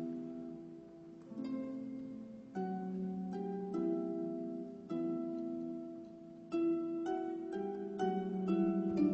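Soft background music of slow, sustained notes that change every second or so, with a brief lull about a second in.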